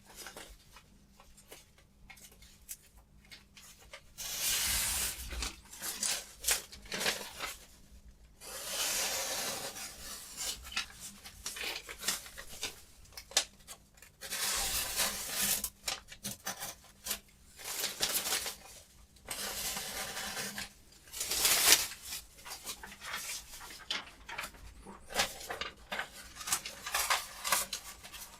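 A knife blade rasping against an abrasive or edge surface in a series of irregular scraping strokes of a second or two each, with small clicks of handling between them.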